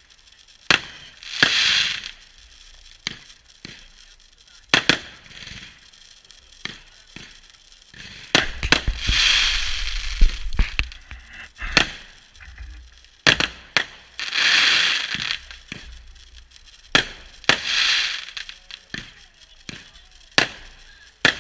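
Fireworks going off: scattered sharp bangs and cracks, with four hissing bursts of a second or two each.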